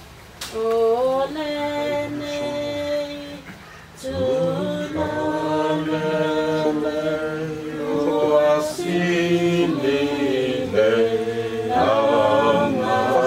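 A group of voices singing without instruments, holding long notes, with a short break about four seconds in.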